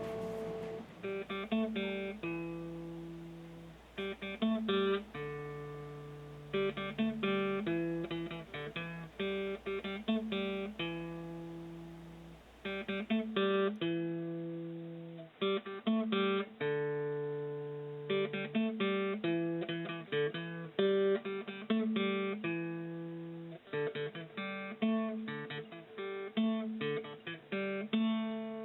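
Acoustic guitar music, plucked and strummed chords ringing out in a repeating pattern.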